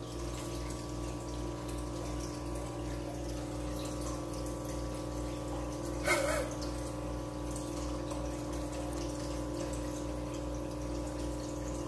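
Aquarium air stones and air-driven sponge filters bubbling steadily over a constant hum. A short, louder sound breaks in once, about six seconds in.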